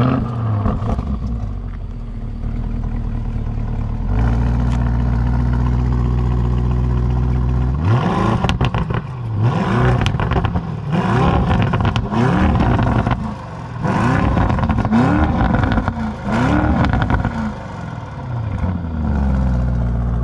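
Lamborghini Urus twin-turbo V8 heard at its exhaust: it fires up with a rev flare right at the start and settles into a steady idle. From about 8 s to 17 s it is blipped about six times in quick succession, each rev rising and falling, before it drops back to idle near the end.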